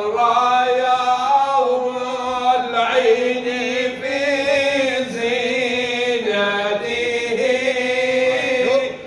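Men singing an unaccompanied Arabic devotional chant of blessings on the Prophet (salawat) into a microphone, drawing out long held notes with ornamented turns. There is a brief breath-pause at the very end.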